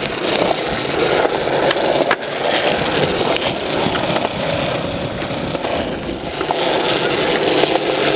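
Skateboard wheels rolling on smooth concrete: a steady rumble, with a sharp knock about two seconds in.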